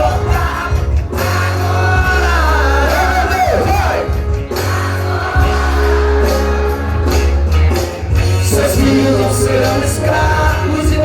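Music: a song with a singing voice over a steady, heavy bass line.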